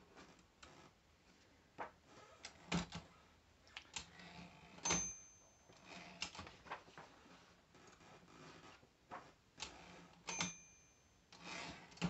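Olivetti Lettera 33 portable manual typewriter being handled while paper is squared up and the margins set: scattered mechanical clicks and clacks of the carriage and its levers, with a short ringing tone twice, about five seconds apart.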